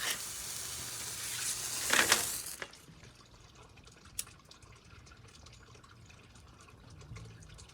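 A lit firework hissing steadily as it sprays sparks. It swells about two seconds in and cuts off half a second later, leaving a few faint ticks.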